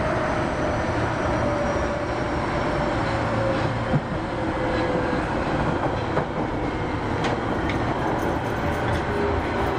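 Osaka Metro 25 series subway train running, heard from inside the car: a steady rumble of wheels on rail, a few sharp rail clicks, and a tone that slowly falls in pitch.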